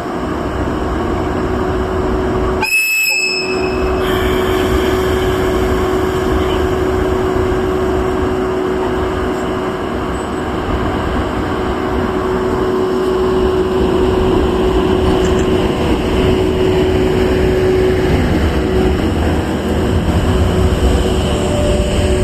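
EF81 electric locomotive sounds one short, high horn blast about three seconds in, then its train runs on with a loud, steady rumble of wheels and motors under a steady hum that dies away near the end.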